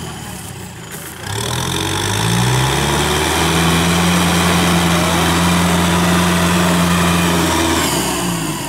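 Kubota tractor's diesel engine running under load. Its pitch climbs over the first few seconds, holds steady, then drops off near the end.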